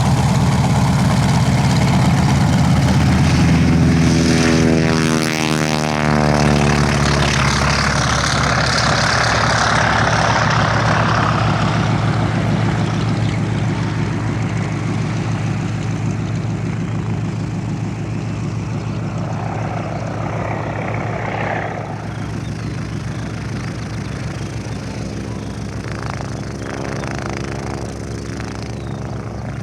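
Piston-engined propeller aircraft running at high power close by, with a sweep down in pitch a few seconds in as it passes, then slowly fading as it moves away.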